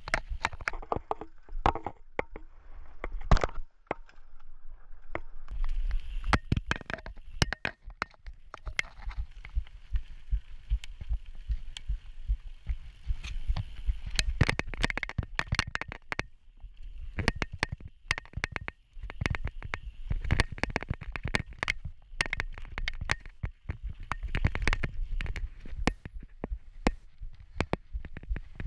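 Mountain bike riding fast down a rough dirt singletrack, picked up by a camera mounted on the bike or rider: tyres rumbling over the ground with a constant rattle of sharp knocks and clicks as the bike goes over roots and bumps.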